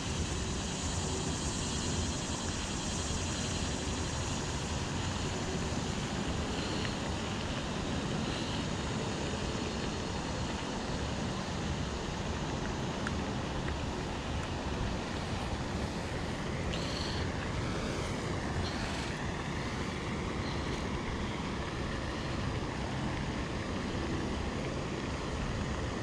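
Steady wind noise on the microphone, with a few faint short high calls around the middle.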